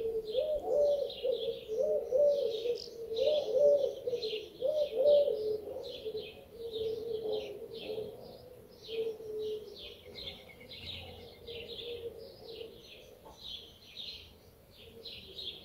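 Small birds chirping and twittering, with a dove cooing over and over; the cooing is loudest in the first half and fades away after that.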